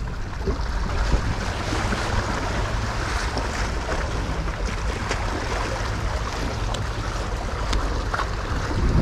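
Sea waves washing and splashing against shoreline boulders, with wind rumbling on the microphone.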